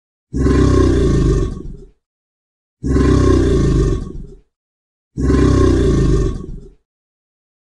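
Alligator bellowing: a deep call played three times as identical clips, each about a second and a half long and about two and a half seconds apart.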